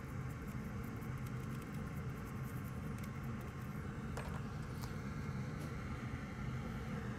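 A stiff brush scratching across a wet circuit board for the first few seconds, over a steady low hum of workshop equipment. Two light clicks follow about four and five seconds in.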